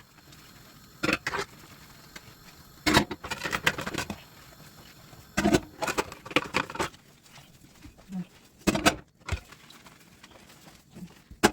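Dishes and utensils knocking and clattering as they are handled while being washed, in short scattered bursts with quiet pauses between.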